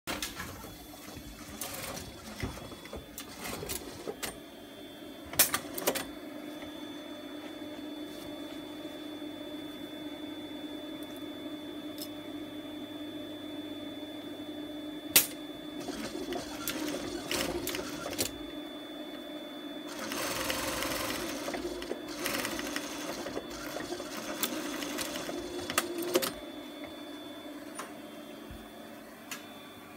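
Industrial sewing machine running steadily while stitching fabric, its motor humming, with a few sharp clacks.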